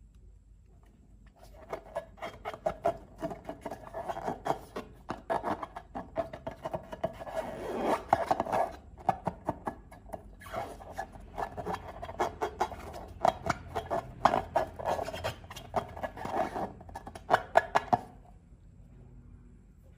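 Slime being squished and worked by hand, a sticky crackle of many quick small pops and clicks. It stops briefly in the middle and again near the end.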